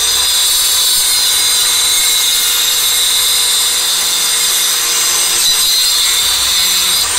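Makita circular saw cutting through a wooden board: a loud, steady high-pitched whine with the hiss of the blade in the wood, stopping near the end.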